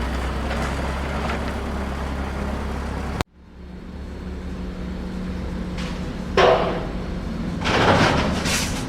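Steady low engine rumble of heavy construction machinery that cuts off abruptly about a third of the way in and fades back up. Two loud, short rasping bursts come near the end.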